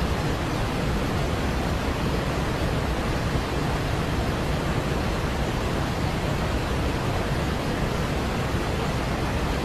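Steady, even hiss of pink noise with no changes in level, the masking noise layer of a subliminal audio track.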